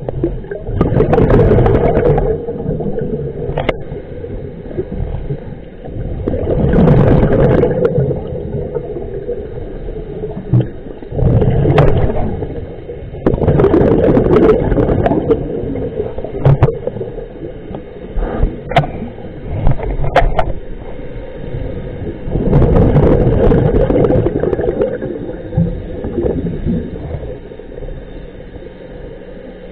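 Scuba diver's exhaled bubbles gurgling from the regulator past an underwater camera, in loud swells every few seconds with quieter stretches between, and a few sharp clicks.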